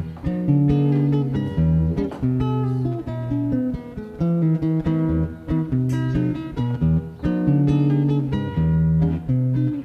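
Background instrumental music: plucked guitar notes over a low, repeating bass line.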